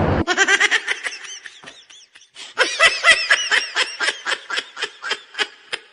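A loud train noise cuts off abruptly just after the start. It is followed by a person laughing in a run of short 'ha' bursts, about three to four a second, that pause briefly, come back loudly and then taper off.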